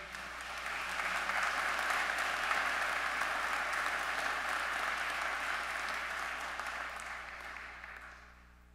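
Congregation applauding, building over the first second, holding steady, then dying away near the end.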